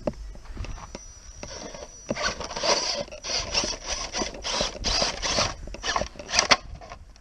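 Radio-controlled scale rock crawler climbing boulders: its electric drivetrain whirs in short repeated spurts, about two a second, as the tyres scrabble on the rock. The spurts start about two seconds in and stop near the end.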